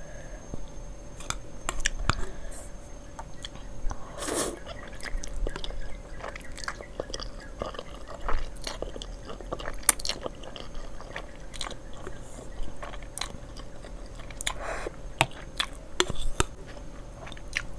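A person chewing and slurping instant noodles and enoki mushrooms: wet mouth sounds and small clicks throughout, with two longer slurps, one about four seconds in and one near fifteen seconds.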